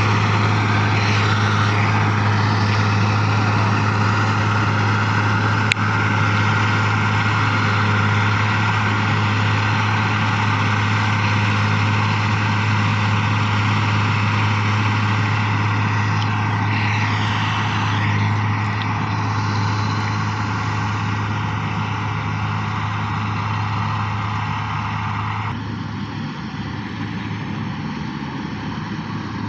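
Sperry New Holland 8060 combine harvester running steadily, a constant low engine hum with mechanical noise over it, dropping slightly in level near the end.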